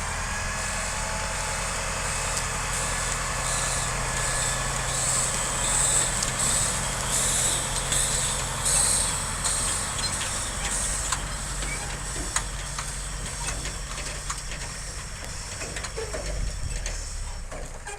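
Heavy diesel farm machinery running steadily at a constant speed, with a rushing hiss that swells and fades and scattered sharp clicks in the second half.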